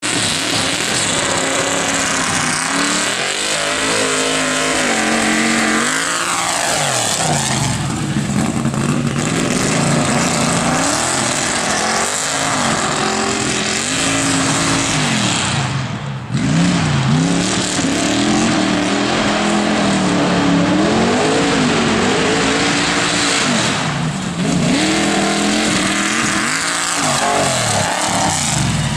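Off-road tuff truck's engine revving hard, its pitch climbing and dropping over and over as the throttle is worked, with a brief break about 16 seconds in.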